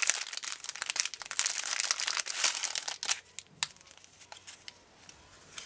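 Clear plastic packaging bag crinkling as it is handled and opened by hand: dense crackling for about the first three seconds, then only a few scattered crackles.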